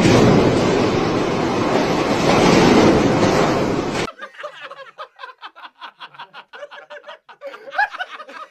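A loud, steady rushing noise cuts off suddenly about four seconds in, followed by a person laughing in quick, repeated chuckles.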